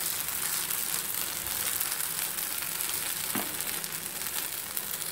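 Agathi keerai dosa frying in oil on a hot nonstick dosa tawa, a steady sizzle, with two faint taps about a second and a half in and near three and a half seconds.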